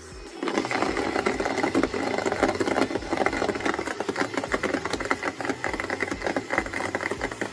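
Small rechargeable portable cup blender switching on about half a second in and running steadily, blending a thick smoothie with chunks of ice, with a dense rapid clatter over the motor's whir.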